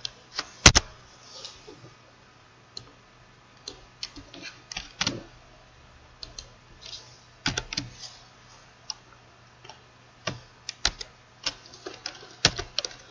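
Computer keyboard keys clicking in short, irregular runs of typing with pauses between, the loudest strokes coming right at the start, about halfway through and near the end.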